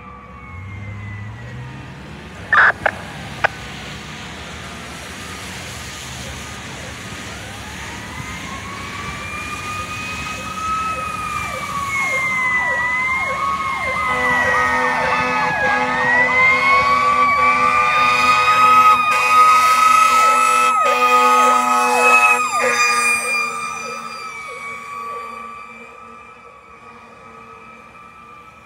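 Fire engine (a 2003 Pierce Enforcer pumper) responding with its siren wailing, rising and falling in pitch. A horn blares along with the siren for several seconds as the truck comes close. The siren fades near the end.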